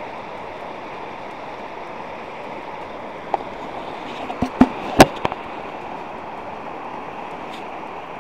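Steady rush of a shallow river running over rocky rapids. A quick cluster of sharp knocks from the handheld camera being swung and bumped comes a little past the middle, the loudest about five seconds in.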